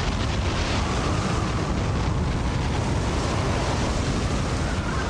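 Tornado wind blasting across a camcorder's microphone: a loud, steady rush of wind noise with heavy low buffeting.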